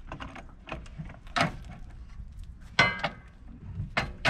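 Folding RV entry steps being scissored and stowed: a few sharp metal clanks and knocks, the loudest a ringing clank about three seconds in.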